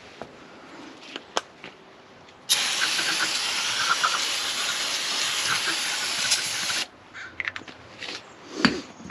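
Aerosol spray can of cleaner hissing in one continuous spray of about four seconds, starting and stopping abruptly, as engine parts are spritzed clean. A few light clicks come before it and a short knock near the end.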